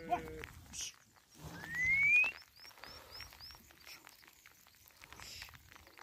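Flock of sheep moving over grass, with scattered soft hoof steps and rustling. About a second and a half in comes a rising whistle, the loudest sound, followed at once by a quick run of five short high chirps.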